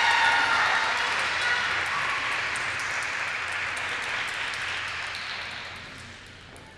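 Audience applause in an ice rink, loudest at first and dying away toward the end.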